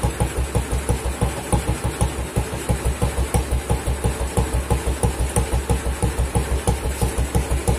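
Classic BSA motorcycle engine idling on its stand, a steady, even beat of exhaust pulses from the silencer.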